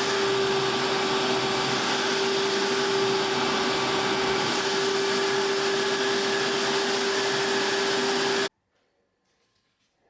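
Steady whirring of a small motor with rushing air and a constant hum, cutting off suddenly about eight and a half seconds in.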